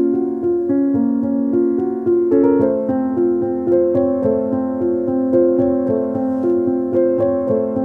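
Background music played on a keyboard instrument: a piano-like melody of notes struck at an even pace.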